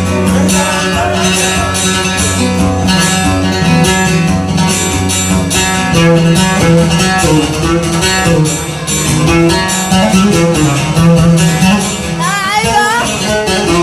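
Instrumental break of a Yemeni song: a plucked-string melody over a steady percussion beat, with a wavering, sliding note near the end.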